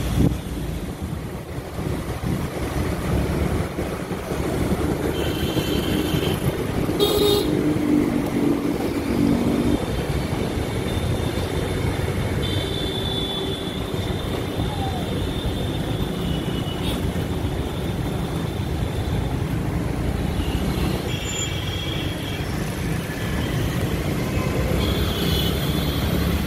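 Road traffic with a convoy of police SUVs driving by: a steady rumble of engines and tyres, with car horns tooting several times.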